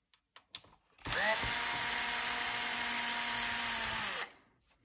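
Cordless drill-driver motor spinning up about a second in, running steadily for about three seconds while turning a screw, then winding down and stopping.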